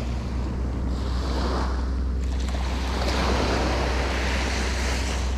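Small surf waves breaking and washing up a sandy beach, the hiss swelling and easing as each wave comes in. Wind buffets the microphone with a steady low rumble underneath.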